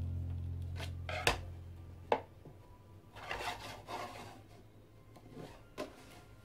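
Handling of a plastic prize figure on its display base: a few light clicks and taps as the figure and its staff are set on the stand, with a soft rubbing in the middle. A low held music note fades out over the first couple of seconds.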